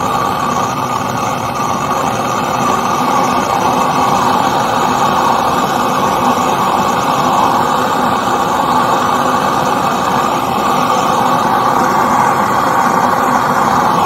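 Gas brazing torch burning steadily with an even, unbroken hiss as its flame heats a corroded copper refrigerator pipe to braze a new joint over the leak.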